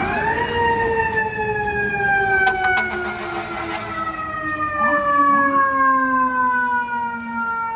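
An FDNY fire truck's siren, typical of a mechanical Q-type siren: it spins up quickly to a high wail, then slowly winds down in pitch over several seconds.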